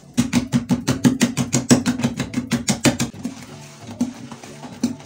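Wooden stick knocking rapidly against the sides of a plastic bucket as a thick soap mixture is stirred hard by hand, about six or seven knocks a second, stopping about three seconds in. Background music plays under it.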